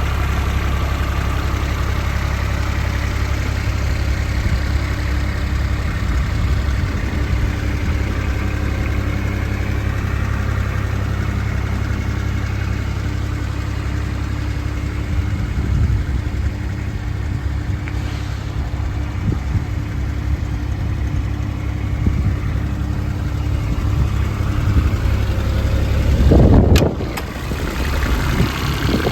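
Diesel engine of a JCB 8018 mini excavator running steadily at idle. Near the end it swells briefly louder, with a sharp click.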